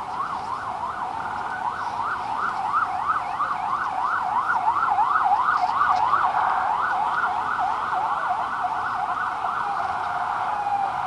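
Emergency vehicle siren in a fast yelp, its pitch sweeping up and down about four times a second, growing louder toward the middle.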